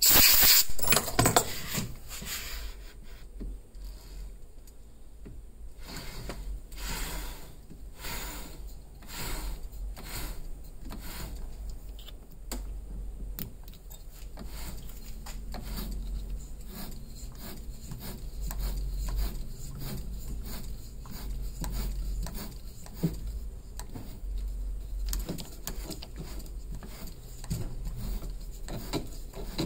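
Hand work at a small metal lathe while fitting a joint pin into a pool cue's joint insert: a run of short rubbing and scraping strokes of metal on wood and metal, about one a second in places, over a low rumble. A loud air hiss cuts off at the very start.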